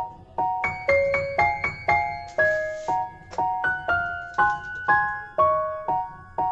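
Background music: a gentle piano track playing chords about twice a second.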